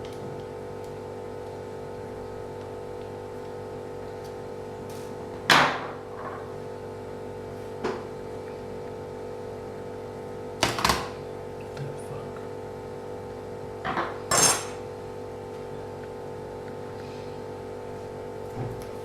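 Small hard parts and tools knocked and set down on a work surface while a laptop is taken apart: about six sharp clacks, the loudest about five, ten and fourteen seconds in, over a steady hum.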